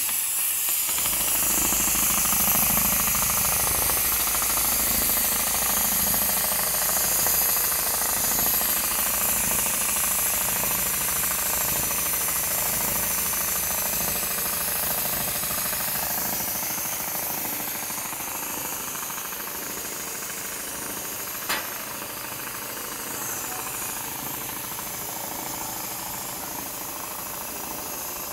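Richpeace large-area automatic sewing machine running and stitching, a rapid steady needle clatter with a strong hiss over it. A single sharp click about three-quarters of the way through.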